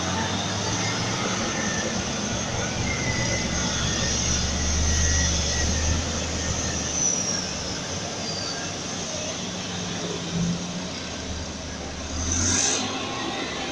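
Heavy diesel mining machinery running, a hydraulic excavator and a haul truck passing close by, as a steady low drone. It is loudest a few seconds in and eases a little after the truck has gone by, with a brief swell near the end.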